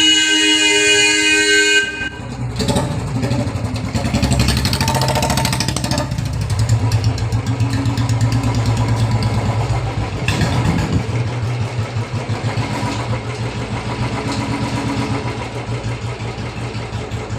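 A vehicle horn sounds steadily for about the first two seconds. Then a Royal Enfield Bullet's single-cylinder engine runs with a rhythmic beat, the revs rising and falling a few times.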